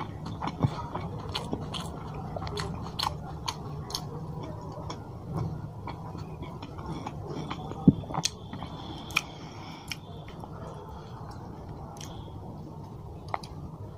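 A man chewing mouthfuls of rice and fish curry eaten by hand, with many wet lip and mouth smacking clicks, the sharpest about eight seconds in, over a steady low hum.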